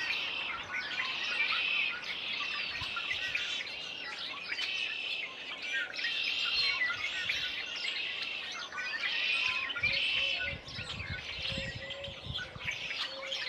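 A dense chorus of songbirds singing and calling over one another, with red-winged blackbirds loudest, their songs swelling in bursts every second or two.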